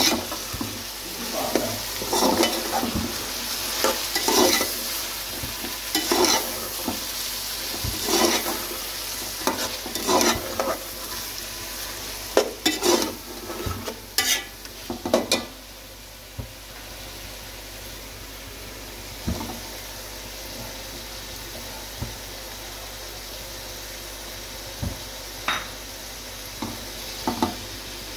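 Food sizzling in a hot pan while a spatula stirs and scrapes it, in strokes about every two seconds for the first half. In the second half there is only the steady sizzle, with a few light taps.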